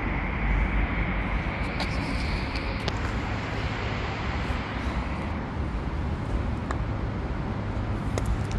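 Steady street background noise: a low rumble of traffic under an even hiss, with a few faint clicks.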